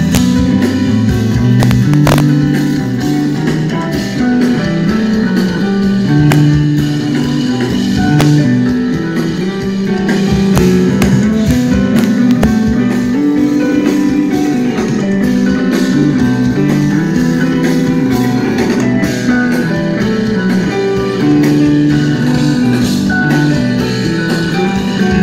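Music led by a guitar, playing a run of changing notes, with light drums.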